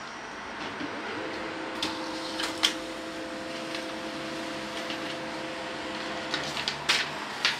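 HP Laser 135a laser printer printing a supplies status report page: a steady motor whine of several tones starts about a second in and stops near the end, with a scatter of sharp clicks from the paper path, the loudest about two and a half seconds in and near the end.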